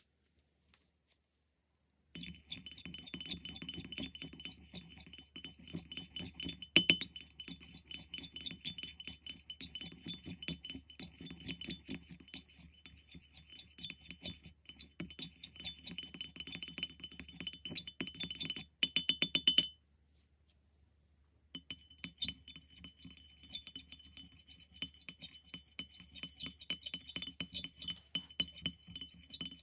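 Clear stirring rod clinking against a ceramic paint palette as it stirs thick paint in a well: many small rapid taps with a ringing tone, starting about two seconds in. Near two-thirds of the way through, a quicker run of louder taps comes just before a pause of about two seconds, and then the stirring clinks resume.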